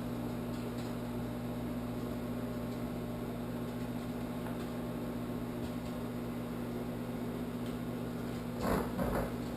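Microwave oven running with a steady hum while it cooks bacon. A few brief sounds come near the end.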